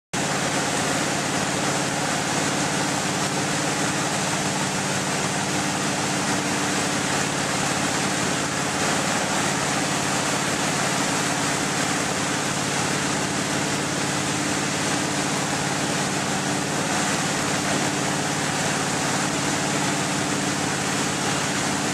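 Tow boat's engine running steadily at pulling speed while towing a water skier, heard from on board: a low hum of several steady tones under the constant rush of water and wind.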